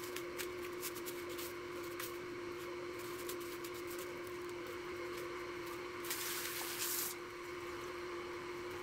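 Hands pressing raw chicken into a dry breaded coating mix on a foam plate: soft crumb rustles and small clicks, then a louder rustle for about a second near six seconds in as the piece is worked and lifted out. A steady hum sits underneath throughout.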